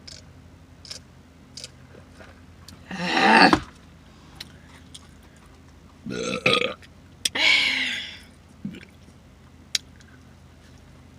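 A woman burping loudly three times: one long burp about three seconds in and two more back to back a few seconds later. Faint wet mouth smacks come in between.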